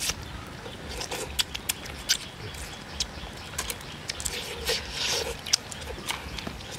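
A person eating cooked snails with chopsticks: wet chewing and slurping mouth sounds with many short, sharp clicks.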